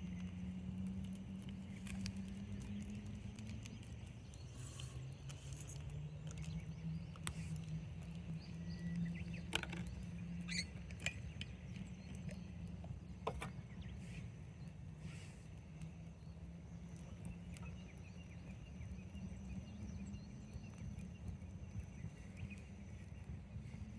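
Campfire burning, with scattered crackles and pops over a low steady hum.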